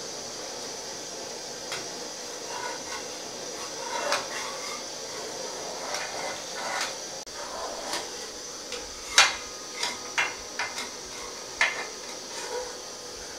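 Perforated metal skimmer scraping and knocking against a metal pot while stirring a simmering milk-and-ground-almond mixture, with a steady hiss underneath. The knocks come irregularly and grow more frequent in the second half, the sharpest about nine seconds in.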